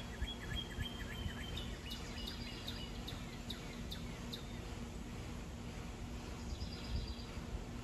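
Wild birds chirping: quick runs of short high chirps in the first half and a few more near the end, over steady outdoor background noise.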